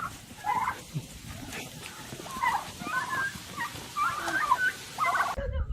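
Turkeys gobbling: a string of short, warbling calls, several a second apart, which cut off abruptly near the end.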